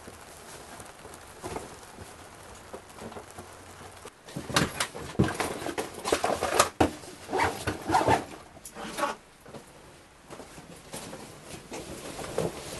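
Rustling of clothes and a leather jacket being pulled on, with clicks and knocks from a gun being handled; the handling noise is busiest from about four to nine seconds in.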